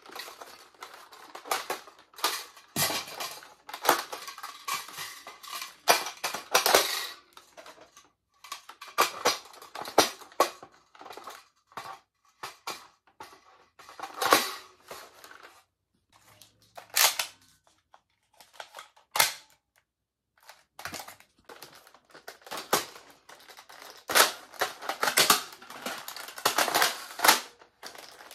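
Plastic toy blasters being reloaded and primed by hand: clusters of sharp plastic clicks and clacks as magazines are snapped in and priming handles are worked, with short pauses between.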